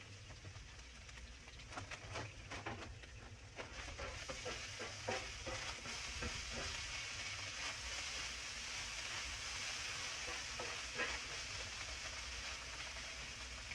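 Roast beef hash sizzling steadily as it fries, with scattered light clicks and scrapes during the first half or so as it is stirred.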